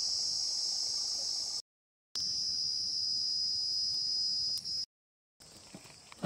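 Insects chirring in a steady, high-pitched drone, cut off abruptly twice by short gaps of dead silence. Near the end only a much quieter background remains.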